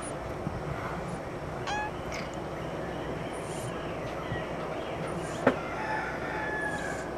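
Steady background hiss with a few brief, high animal calls scattered through it, and one sharp click about five and a half seconds in.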